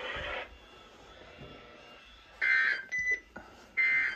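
Weather radio receivers beeping after the required weekly test: a short beep, a thinner, higher tone, then the first beep again about a second and a half later. Radio static cuts off about half a second in.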